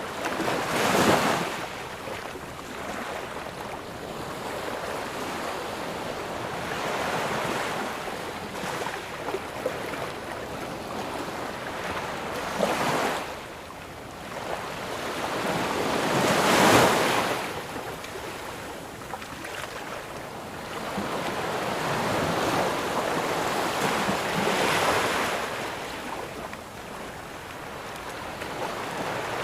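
Ocean surf breaking on a sandy beach: a continuous wash of water with four swells as waves break, the loudest a little past the middle.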